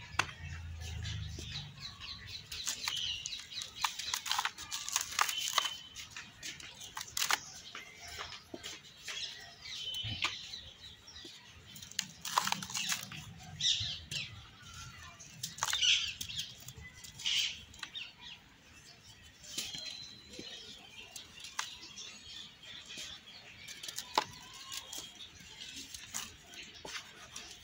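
Dry yellow soil cakes crumbling and crushing under bare hands, an uneven crackle of breaking clumps with scattered sharp crunches, and the gritty rustle of powder rubbed between the fingers.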